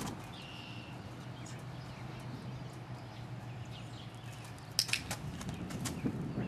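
A short cluster of sharp clicks or knocks about five seconds in, with a few fainter ones after, over a quiet outdoor background; a faint brief chirp sounds about half a second in.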